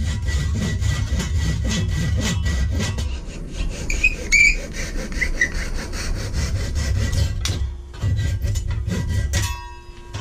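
Hand saw cutting through the wooden wedge and handle end that stick up out of an axe head, trimming them flush, in quick back-and-forth strokes. There is a brief pause about seven and a half seconds in, then the sawing resumes. A short ringing tone sounds near the end.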